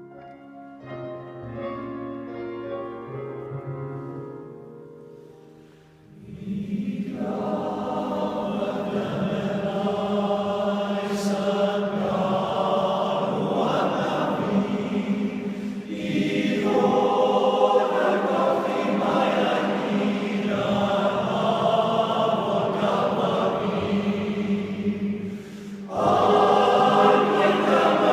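Background music: soft instrumental notes fade out, then a choir starts singing about six seconds in and carries on, with brief pauses about halfway through and near the end.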